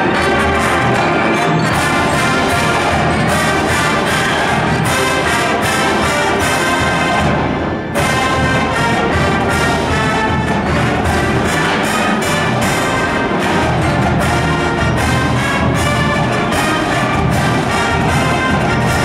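A full marching band plays a loud brass piece, with sousaphones, trumpets and marching bass drums keeping a steady beat. The music breaks off briefly about eight seconds in, then the band comes straight back in.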